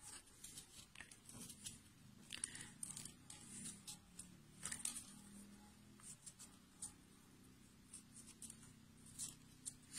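Faint scraping and crunching of a small hand gouge shaving an avocado pit, in short irregular strokes as the button is thinned.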